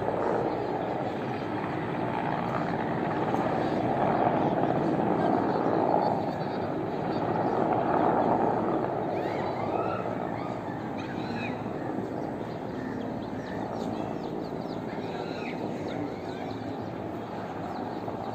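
A helicopter flying low overhead, its rotor and engine noise loud and steady over the first half, then fading as it moves away.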